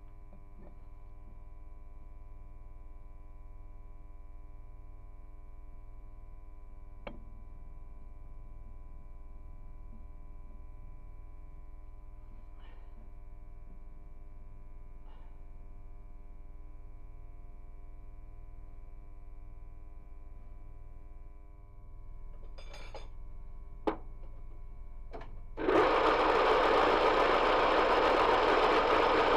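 Metal-turning lathe: a steady machine hum with a few light clicks and knocks, then about 26 seconds in a much louder, rough mechanical running noise starts and carries on.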